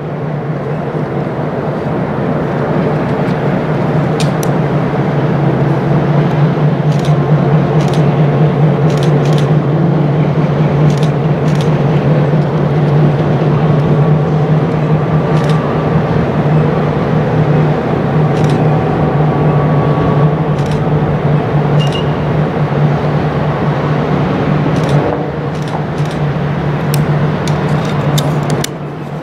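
Diesel road-switcher locomotive's engine running with a steady low drone as it moves slowly down the track, with scattered sharp clicks and knocks. The level drops about 25 seconds in and again near the end.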